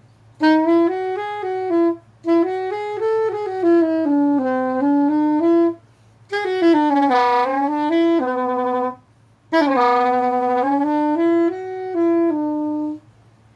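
Jean Paul SS400GP curved soprano saxophone playing a melody in four phrases, with short breath gaps between them. The intonation is slightly off, which the player puts down to a brand-new horn not yet tuned or warmed up.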